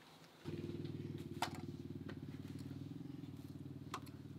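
A small engine running steadily, cutting in suddenly about half a second in and easing off slightly, with a couple of sharp clicks over it.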